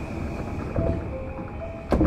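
A simple chiming melody of short stepped notes, typical of a platform departure melody, heard inside a stopped JR East E235 train. A steady high tone runs under it, and a sharp knock near the end is the loudest sound.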